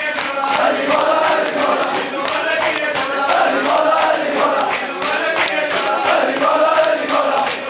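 A crowd of men chanting a mourning refrain in unison, repeating the same short phrase over and over, with a steady beat of open hands slapping on chests (matam).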